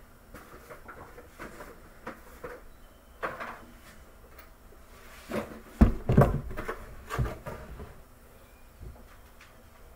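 Kitchen clatter: scattered knocks and clunks, with the loudest, heavy thumps about six seconds in and another a second later.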